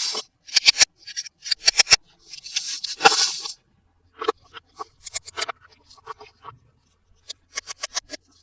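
Toy packaging being handled and opened: a rustling, tearing burst right at the start and another from about two and a half seconds in, with many short sharp clicks and taps of plastic and cardboard between and after them.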